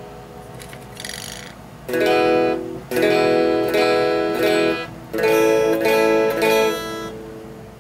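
Electric guitar chords strummed through a small amplifier via an Ibanez DE7 echo/delay pedal, each chord ringing for about a second and dying away dry with no repeats: the pedal passes the guitar but its echo and delay are not working.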